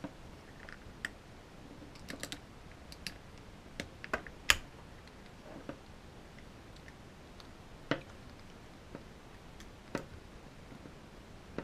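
Small screwdriver prying at the plastic clips and lens frame of an LED lamp head: scattered sharp clicks and taps, the loudest about four and a half seconds in.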